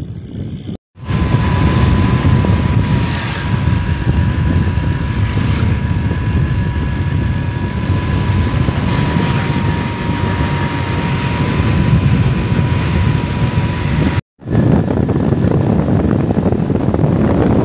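Motor vehicle moving along a road: its engine runs with a steady whine over loud wind rumble on the microphone. The sound cuts out briefly about a second in and again near the end.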